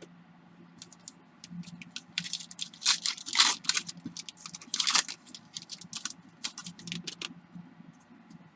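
Plastic foil wrapper of a pack of baseball trading cards being torn open and crinkled, a run of sharp crackles that is loudest in the middle and dies away a little after seven seconds in.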